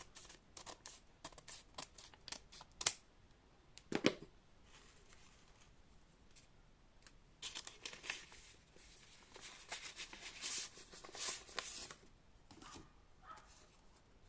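Mail packaging being opened and handled by hand: scattered clicks and paper handling, two sharper knocks, then a longer stretch of paper tearing and crinkling.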